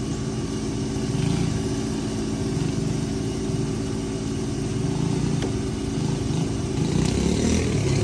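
Pickup truck's engine idling steadily with the hood open, with a faint click about five seconds in.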